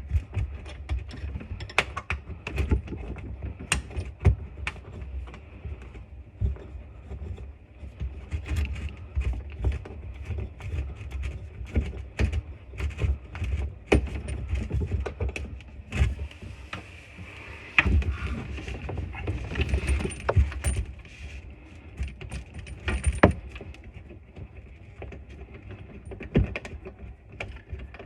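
Irregular clinks and knocks of metal tools and fittings being handled during washbasin faucet work, over a low rumble.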